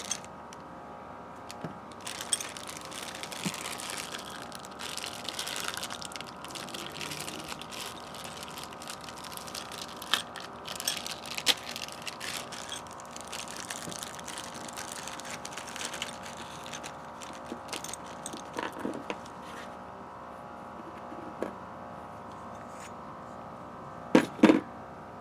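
Clear plastic parts bag crinkling and rustling as it is torn open and handled, with small clicks of a plastic part and its screws. Two loud sharp knocks near the end.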